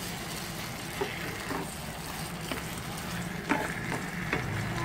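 Octopus simmering and sizzling in soy-based adobo sauce in a nonstick pan, with a spatula stirring and tapping against the pan a few times.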